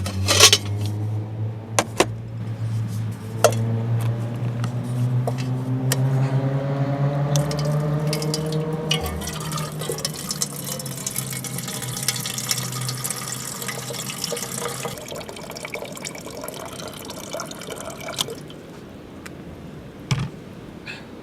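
Water poured into a container, with a few knocks at first. The pitch of the pour rises steadily for about ten seconds as the vessel fills, then fades.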